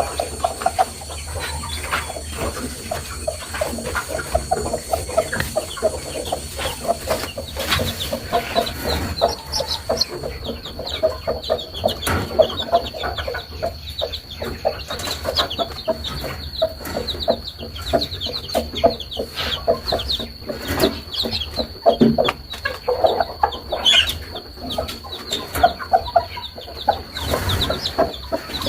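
Chickens clucking in short repeated notes, mixed with many brief high chirps, with a steady high-pitched tone running underneath.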